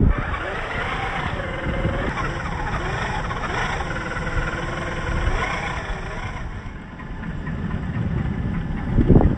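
Whine of 1/10-scale RC crawler trucks' 540-size electric motors and gearboxes as the trucks grind through thick mud, the pitch wavering up and down with the throttle, over a low rumble. A heavy low thump comes near the end.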